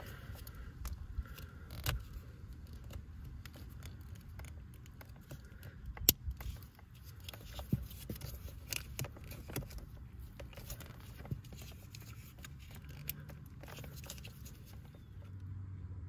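Faint plastic clicks and scraping from a small pick prying at the locking tab of a blower motor resistor's wiring connector, which is melted onto the resistor body. A few sharper snaps stand out, the strongest about six seconds in.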